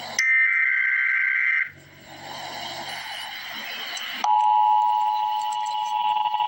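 Emergency Alert System header: a burst of shrill data tones switching between two high pitches, which cuts off after about a second and a half. A couple of seconds of hiss follow, then about four seconds in the EAS attention signal starts, a steady loud two-tone alert beep.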